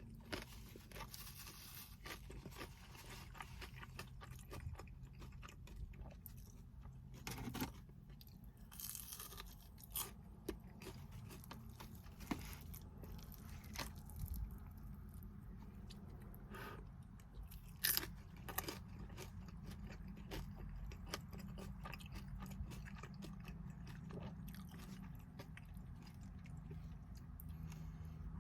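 Close-miked chewing and crunching of Indian takeout food, with sharp crunches now and then, the loudest about a third of the way in and again past the middle. A steady low hum runs underneath.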